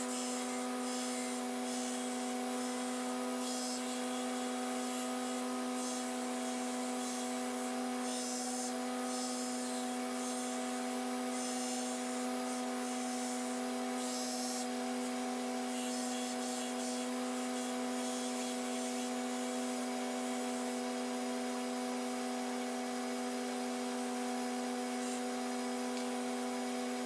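A KMG belt grinder running at steady speed while a steel knife blank is ground to profile against the belt: a steady motor hum with grinding hiss over it.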